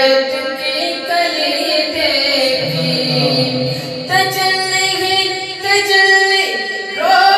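A man's voice singing a devotional Urdu manqabat without instruments, drawing out long held, ornamented notes, with a low sustained vocal hum underneath for a moment in the middle.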